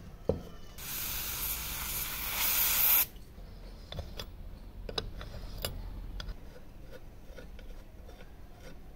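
Aerosol can spraying in one burst of about two seconds that cuts off sharply, then a few sharp metallic clicks as an open-end wrench works the rusted nut on the iron's handle.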